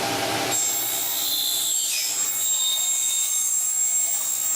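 Power saw with a carbide-tipped blade, cutting aluminium: a dense cutting noise stops about half a second in, then the spinning blade gives a steady high whine, with one tone sliding down in pitch about two seconds in.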